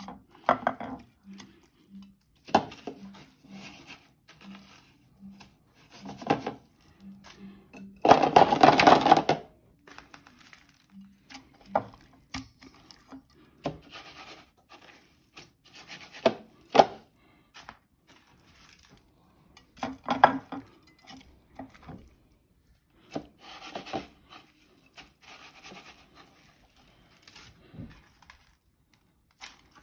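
Hands pressing egg-dipped chicken pieces into panko breadcrumbs in a plastic dish: irregular dry rustling and scraping of crumbs against the dish, with light knocks of dish and tray. One longer, louder scrape comes about eight seconds in.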